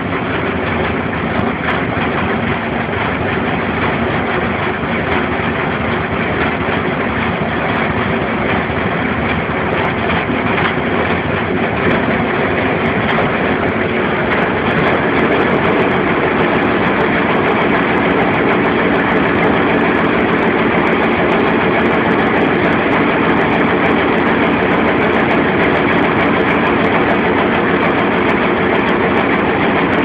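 Top-loading washing machine running: a loud, steady mechanical whir that grows a little louder about halfway through.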